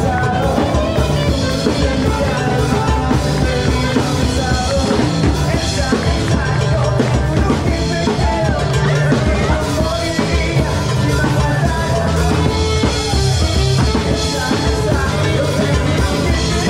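Music with a steady drum beat, bass and a wavering melodic line, loud and continuous.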